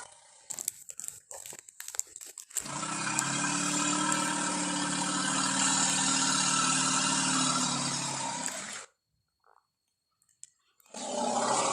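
A few scattered crackling clicks, then a sustained elephant call of about six seconds with a steady low pitch under a breathy hiss, which cuts off suddenly and is followed by a short silence.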